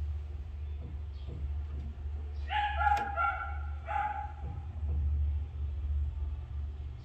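1920s Paillard 78 RPM record player running with a steady low hum as its tonearm is swung over the spinning record. About two and a half seconds in there is a click, then two short high-pitched whines, the second about a second after the first.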